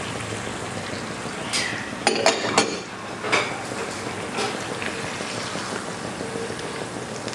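A plastic spatula stirring pork, long green chilies and coconut milk in a granite-coated nonstick pan. It scrapes and knocks against the pan several times, mostly about two seconds in, over a steady low sizzle of the simmering pan.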